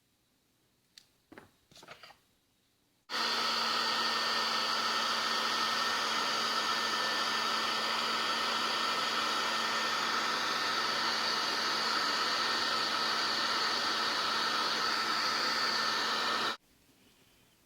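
A handheld hot-air blower switches on about three seconds in, blows steadily with a low, steady hum, and cuts off abruptly near the end. It is heating a smartphone's cracked glass to soften the glue beneath. A few light handling clicks come before it starts.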